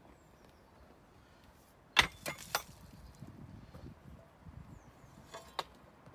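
A sharp clack about two seconds in and two lighter clicks right after it, then soft rustling and two more clicks near the end.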